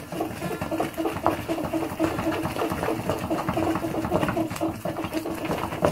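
A spatula scraping and stirring a thick, sticky flour-and-ghee sweet (tusha shinni) in a frying pan, in rapid continuous strokes while the mixture is cooked dry.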